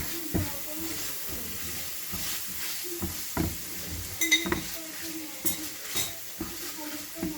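Minced chicken being stirred in a frying pan: a utensil scraping and knocking against the pan a number of times over a soft, steady sizzle of the meat cooking in oil.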